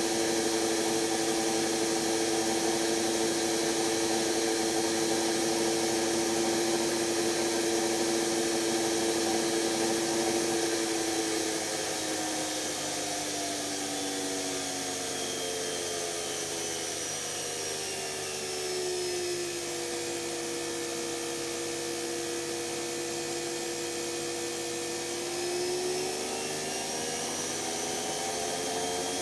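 Washing machine's brushed motor running with a steady whine, its commutator damaged. The pitch falls between about 12 and 16 seconds in as the motor slows, holds lower, then climbs again near the end.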